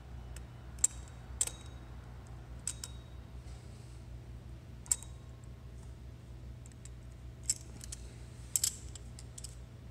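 Sharp metallic clicks and taps, about half a dozen spread out with a quick pair near the end, as a Knipex pliers wrench grips and bends steel lock tabs up against the flywheel bolt heads. A steady low hum runs underneath.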